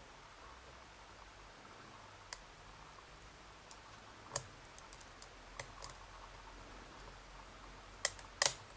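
Faint, scattered clicks of a lock pick and tension wrench working the pins inside a Bricard Mistral S pin-tumbler cylinder: a handful of small ticks spaced out, with two sharper clicks near the end.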